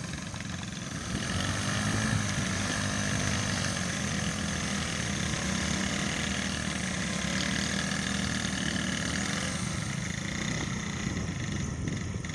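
Small Chinese motorcycle engines running steadily, getting louder about a second in and then holding at an even pitch.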